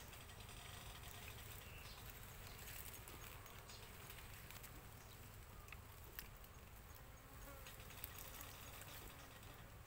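Faint buzzing of a cluster of honey bees on a small comb, with a couple of light clicks about six and eight seconds in.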